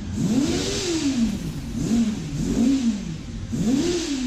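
Motorcycle engine revved in four quick blips, each rising and falling in pitch.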